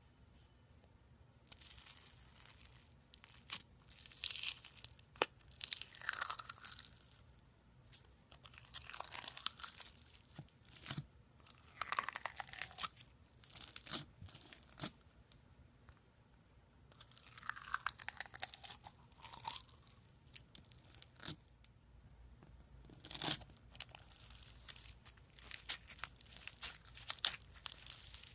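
Slime being stretched, squeezed and pressed by hand in repeated crackly, crinkly bursts, some with a falling squelchy tone, with short pauses between them.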